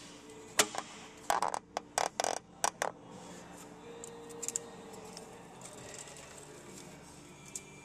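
Sharp clicks and short rattles of a plastic fuel-line disconnect tool being slid onto the fuel line at the fuel filter's coupling, clustered in the first three seconds. Then quiet handling with one more click near the end.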